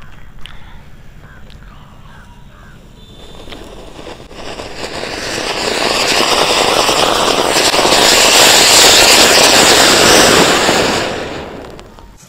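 Anar (cone fountain firework) erupting: a rushing hiss of sparks that builds about four seconds in, holds loud for several seconds, and dies away near the end.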